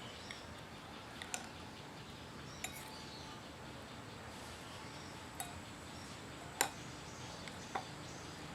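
Sparse, sharp light clicks and clinks at irregular intervals, the loudest about two-thirds through, over a faint steady hiss.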